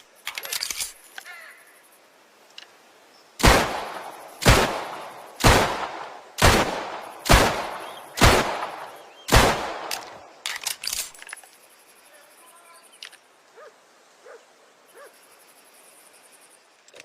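A 1911 pistol firing seven single shots about a second apart, each followed by a short echoing tail.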